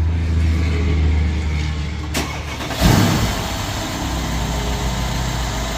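Mercedes-Benz CLS 63 AMG's 5.5-litre twin-turbo V8 starting up on fresh oil, with a short loud flare of revs about three seconds in before settling to a steady idle.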